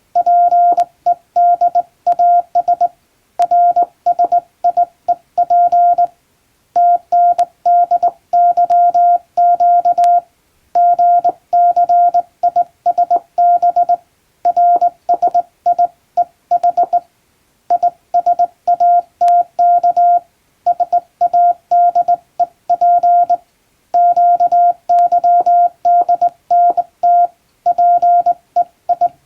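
Morse code sent by hand on a straight key, heard as a steady mid-pitched beep keyed on and off into dots and dashes. It comes in runs of about three seconds, with short pauses between the groups.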